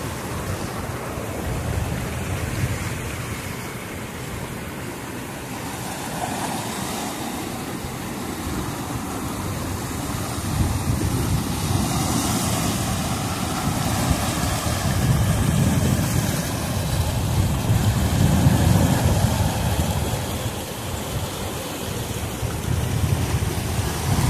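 Rough Black Sea surf breaking and washing over boulders and stones on a rocky shore, a continuous rushing that swells and ebbs with each set of waves and grows louder in the second half, with wind buffeting the microphone.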